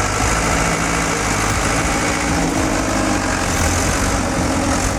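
A heavy vehicle's engine running steadily.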